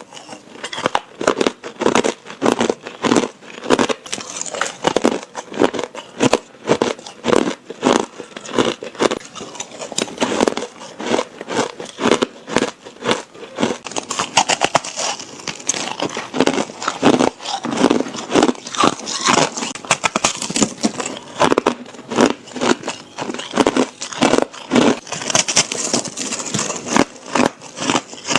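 A person biting and chewing hard ice close to the microphone: a steady run of loud, crisp crunches and cracks, several a second.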